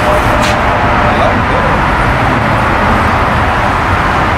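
Steady road traffic noise from passing cars, heavy in the low end.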